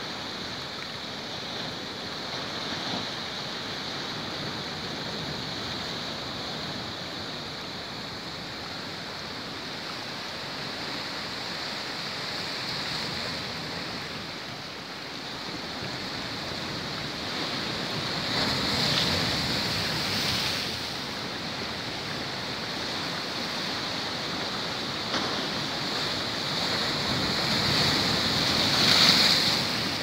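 Heavy surf from a rough sea breaking over a rocky shore: a constant rushing wash of foam, swelling as bigger waves crash, once a little past halfway and loudest near the end.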